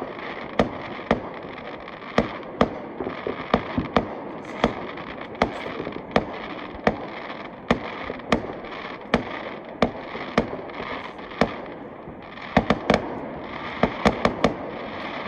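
New Year fireworks going off: a long run of sharp bangs at irregular intervals, about two a second, over continuous noise, with a denser cluster of bangs near the end.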